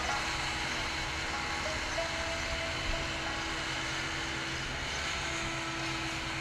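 Soft background music of long held notes, changing pitch every second or two, over a steady rushing noise.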